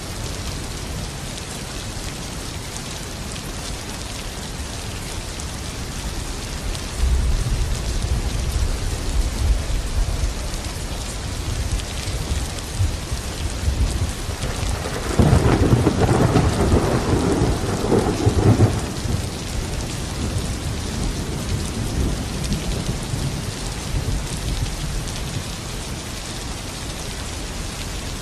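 Steady heavy rain with thunder: a low rumble about a quarter of the way in, and a louder crackling thunderclap rolling for about four seconds near the middle.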